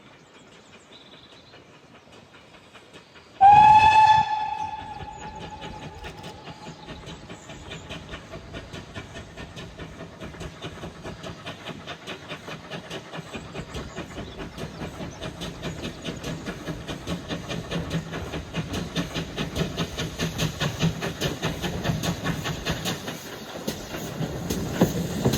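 A steam locomotive whistle sounds once, for about a second, a few seconds in. After it comes a steady rhythm of beats that grows louder and quicker toward the end, as a steam train gets under way.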